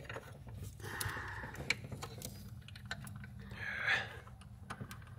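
Light clicks and taps of a pulley-remover tool's halves and shell being fitted by hand around a power steering pump's plastic pulley, with two brief scraping sounds about a second in and about four seconds in, over a steady low hum.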